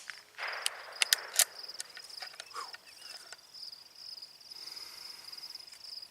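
Insects in the field keep up a steady, high, pulsing trill. About a second in there is a short rustle and a few sharp clicks close by.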